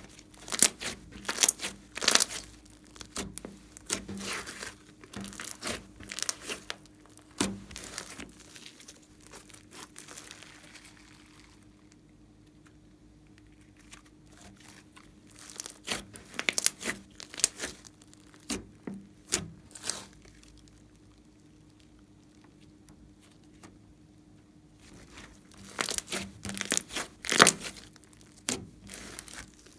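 Slime being worked by hand, giving sticky crackling and popping clicks in three bouts with quieter gaps between.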